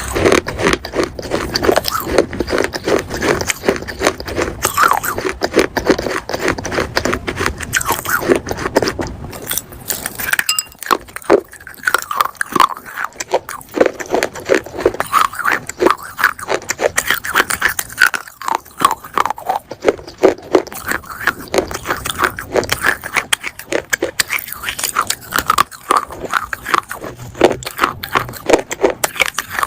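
Baked clay pot pieces being bitten and chewed: a dense, continuous run of sharp crunches and gritty scraping, easing off briefly about ten seconds in.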